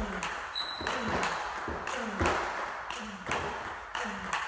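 Table tennis ball being hit back and forth in a steady backhand rally: a run of sharp clicks from bat strikes and bounces on the table, two or three a second. A brief high squeak about half a second in.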